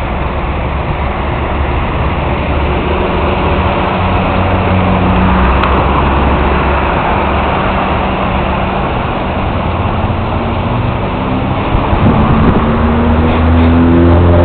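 Motor vehicle engine and road noise running steadily; from about twelve seconds in an engine's pitch rises and grows louder as a vehicle accelerates.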